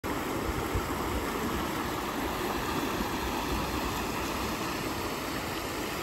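Shallow river water rushing steadily over rocks and riffles.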